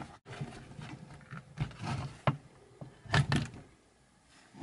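The plastic clamshell housing of an electric drill being handled and lifted apart, with a few short clicks and knocks over light scraping.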